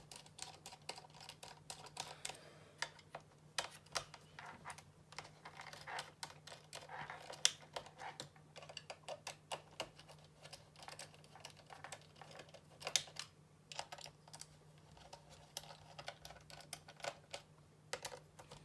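Irregular small clicks and taps from a laptop being taken apart by hand: screwdriver, screws and plastic and metal parts handled around the cooling system. A faint steady hum runs under the clicks.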